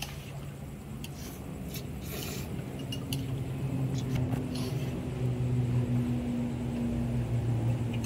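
A vehicle engine hums steadily at one pitch, slowly getting louder. Over it, between about one and four and a half seconds in, come a few short clicks and slurps as noodles are eaten with chopsticks and a spoon from a bowl.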